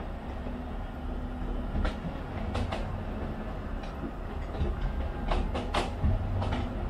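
Aerial fireworks going off: a continuous low rumble of booms with sharp cracks on top, several in quick succession about five to six seconds in.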